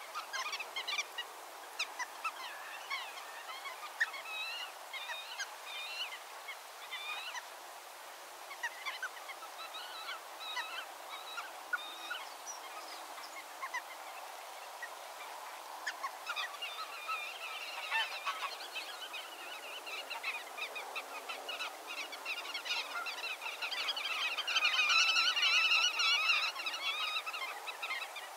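A flock of waterbirds calling: many short, overlapping nasal calls, getting busier and loudest near the end.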